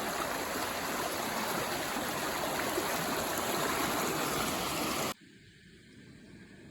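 Small woodland stream running over rocks, a steady rush of water that cuts off suddenly about five seconds in, leaving a much quieter background.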